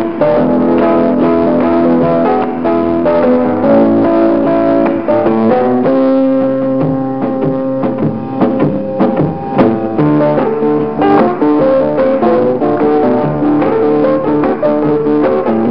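Instrumental background music: a melody of plucked guitar notes with piano.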